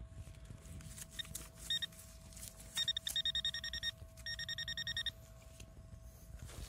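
Metal-detecting pinpointer probe beeping rapidly, at about ten beeps a second, in two runs around three and five seconds in, as it closes on a metal target in the dug soil. A few single beeps come just before the runs.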